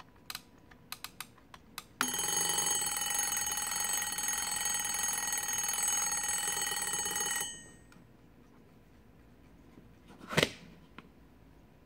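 Westinghouse travel alarm clock radio's alarm sounding, one steady unbroken tone lasting about five and a half seconds before it dies away, after a few small clicks as its controls are handled. Near the end, a single loud knock as a hand presses down on the clock.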